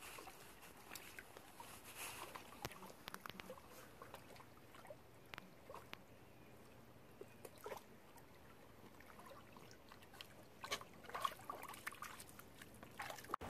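Faint splashing and sloshing of two small dogs wading in shallow river water, with scattered small splashes and a cluster of louder ones near the end.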